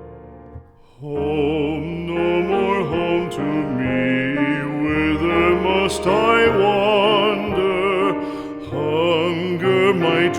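Background music: a slow, mournful melody with strong vibrato over sustained backing. It comes in about a second in, after a fading piano chord.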